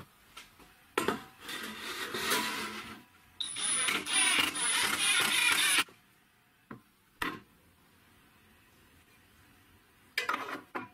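A chipboard tabletop being handled on a steel frame: long rough scraping and rubbing of board against metal, then two sharp knocks, and a short scrape near the end.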